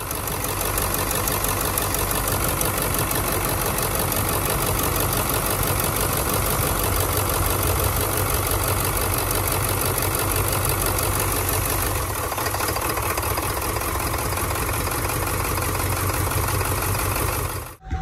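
Ford 7.3 L Powerstroke V8 turbo-diesel running at idle, a steady loud engine clatter. The #2 injector is being plugged back in to show that its bad solenoid shuts down the whole driver's-side bank; the engine sound shifts a little about twelve seconds in.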